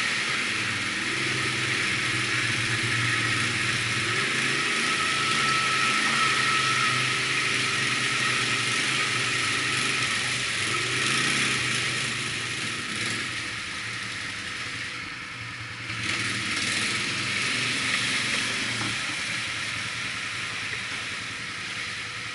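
Can-Am ATVs wading up a shallow stream: engines running at steady throttle under a dense hiss of water splashing and churning around the wheels. The engine hum eases off somewhat about halfway through.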